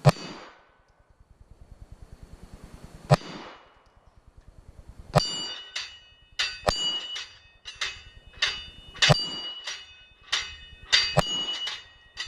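Gunshots: two about three seconds apart, then a faster string of about ten, each followed by a metallic ring.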